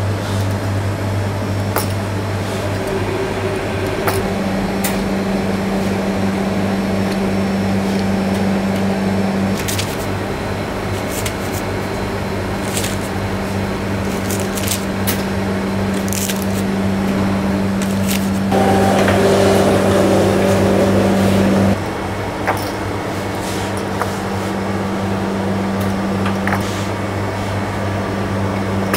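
Steady low machine hum, with scattered light clicks and taps of dough handling; a louder, rougher machine noise runs for about three seconds a little after the middle.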